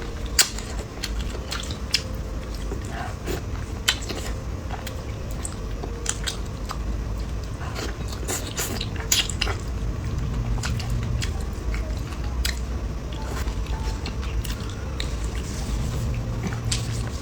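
Close-miked eating: chewing and biting, with irregular wet clicks and smacks scattered throughout.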